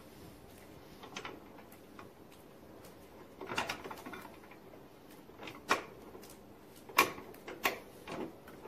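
Metal lift rod and plow hitch bracket clinking and scraping as a pin is worked by hand into line: scattered light knocks, the sharpest about seven seconds in.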